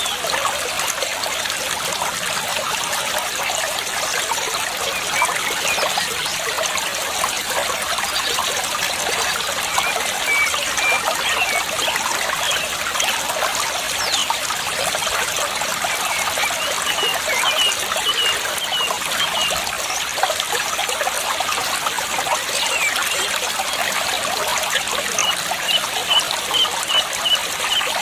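Water trickling and babbling steadily over stones, with small birds chirping in short quick runs of high notes several times.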